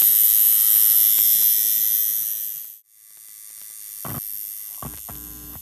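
Coil tattoo machine buzzing steadily, loud for the first few seconds, then cutting out abruptly and coming back quieter, with two short knocks near the end.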